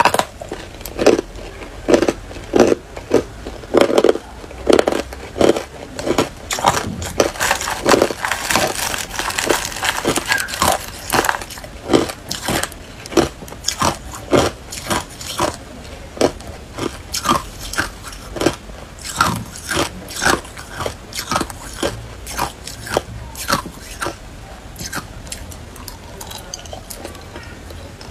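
Hard, clear ice cubes being bitten and crunched between the teeth: a long run of sharp crunches, about one to two a second, thinning out near the end.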